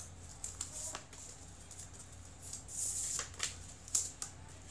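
Sheet of craft paper being handled and folded by hand: rustling with scattered sharp crinkles as the folds are pressed, louder about three to four seconds in.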